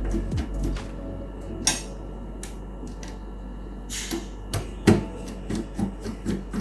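Scattered clicks and taps of a screwdriver and hard plastic parts being handled while screws are taken out of an all-in-one PC's stand, with a brief scrape twice and one sharper knock near the end.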